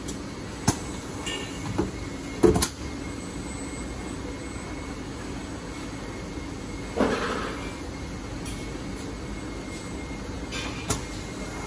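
Automatic airbag rolling machine cycling: sharp mechanical clicks and knocks from its actuators and clamps, twice within the first three seconds and again near the end, with a short hiss of air about seven seconds in, over a steady machine hum.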